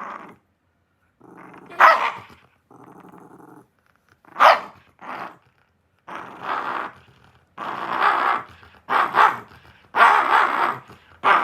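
Shiba Inu growling and grumbling in repeated bursts, broken by a few sharp barks, with the sounds coming longer, louder and closer together in the second half.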